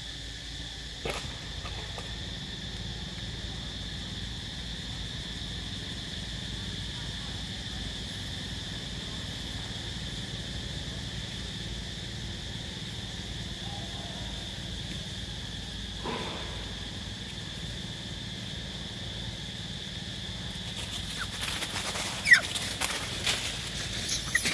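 Insects droning steadily on two fixed high pitches, with a faint knock or two. Near the end, a run of short sharp clicks and squeaks as the macaques start moving about the branches.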